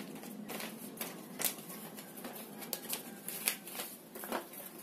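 Folded paper manual rustling and crackling as it is handled and moved, a run of irregular light crackles with a few sharper ones.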